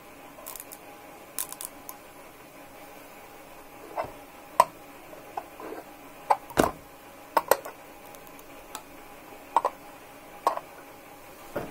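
Irregular light clicks and metallic clinks from a steel open-end spanner being handled against the iron-rod tops of a homemade two-coil electromagnet, about a dozen, some ringing briefly, over a faint steady tone.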